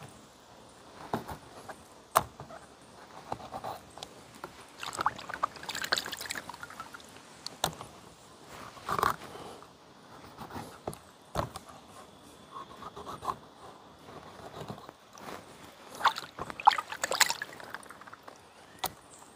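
Knife and hands working on small raw fish: irregular sharp clicks and knocks with scraping swishes and some splashing of water.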